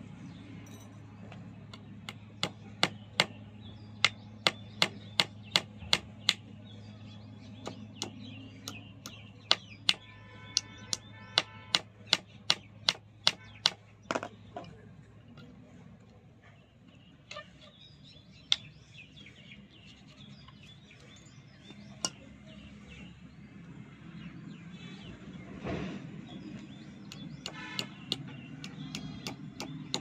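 Hammer knocking nails into a wooden stick: a run of sharp taps about two a second for some twelve seconds, a few scattered taps after, and more tapping near the end. A steady low hum runs underneath.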